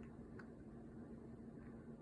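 Near silence: room tone with a steady low hum and two or three faint, short clicks.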